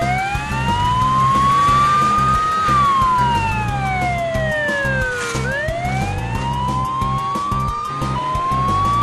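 Police siren wailing: a slow rise and fall in pitch, about one full cycle every five and a half seconds, starting a second rise about halfway through.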